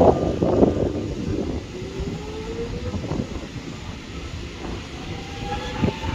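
Metro Trains Melbourne X'Trapolis 100 electric suburban train running past the platform as it pulls away. Its traction motors whine, rising in pitch twice as it gathers speed, over the rumble and clack of wheels on the rail joints, which is loudest in the first second.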